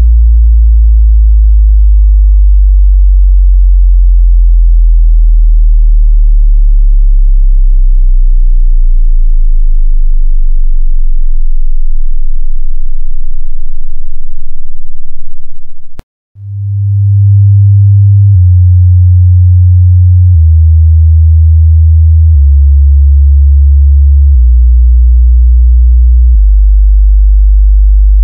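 Bass test tones of pure sine waves. First a very low 5-to-100 Hz sweep, used for finding rattles, which cuts off about 16 seconds in. After a brief gap, a 100-to-10 Hz sweep starts near 100 Hz and steps down in pitch about every two seconds.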